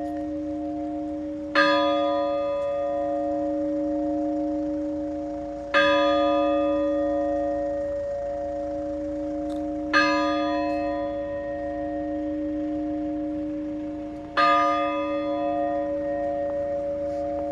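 A large Orthodox church bell tolled slowly. It is struck four times, about four seconds apart, and each stroke rings on with a long, steady hum until the next.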